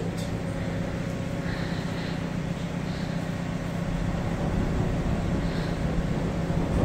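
Steady low rumble and hum under an even hiss, the rumble growing a little stronger about four seconds in.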